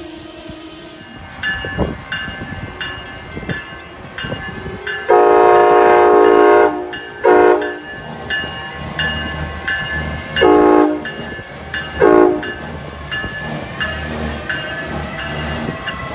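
Amtrak ACS-64 electric locomotive sounding its horn in a hornshow: one long blast, a quick short toot, then after a pause two more short blasts, over the low rumble of the passing Northeast Regional train. A faint bell dings steadily about twice a second underneath.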